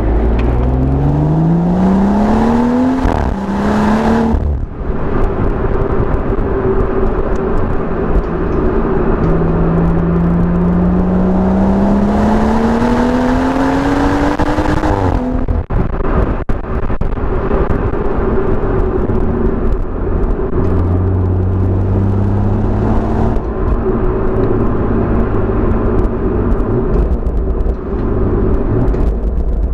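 BMW M140i's turbocharged 3.0-litre straight-six and exhaust pulling hard, the engine note climbing through the revs, with a gear change about three seconds in. A second long pull runs to about halfway and ends in a lift-off with a few sharp crackles on the overrun. After that the car settles to a steady cruise.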